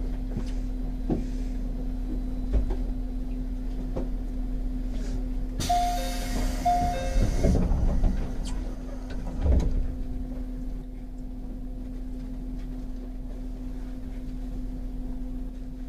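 JR 211 series 5000 electric train standing with a steady electrical hum; about six seconds in, a two-second hiss of compressed air with a brief two-note tone, then a heavy thud about three seconds later as the sliding doors close.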